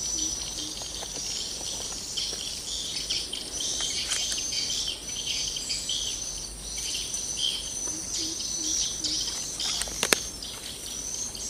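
Steady high-pitched insect chorus with scattered bird chirps around a swamp ditch. There are two short runs of low calls, one near the start and one about eight seconds in, and a single sharp click about ten seconds in.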